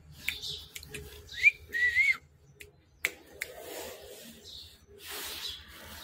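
A person whistling: a quick rising note, then a longer wavering note, both high-pitched. Scattered sharp clicks and taps follow.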